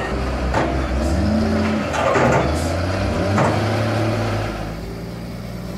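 Heavy machine's engine running under load, its pitch rising and falling as it revs, with a few knocks.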